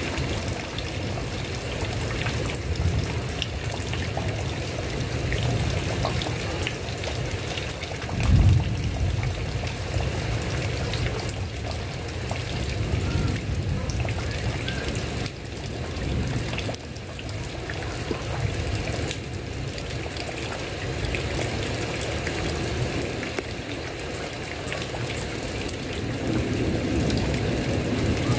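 Heavy rain falling steadily on a tile roof, with a brief low thump about eight seconds in.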